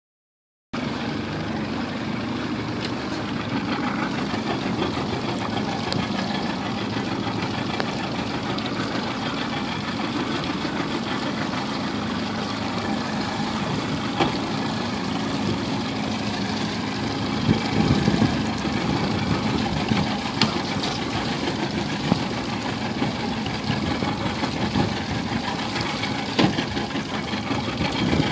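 Motorboat engine idling, a steady drone, with a few light knocks now and then.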